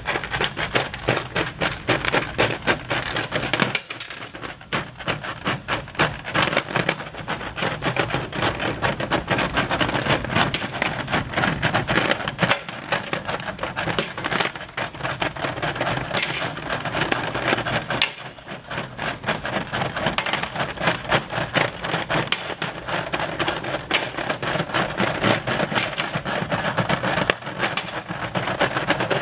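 Small stamped steel parts clattering and clinking against each other and the stainless steel hopper as a magnetic incline conveyor, run at slow speed, drags them up out of the pile. A dense, continuous metallic rattle of rapid clicks, easing briefly twice.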